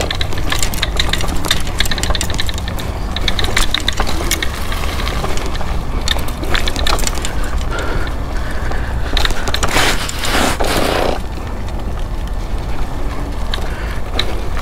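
A scooter riding over a dirt trail strewn with dry leaves and twigs. The tyres keep up a steady low rumble, with crackling and rattling clicks throughout and a louder rushing patch around ten seconds in.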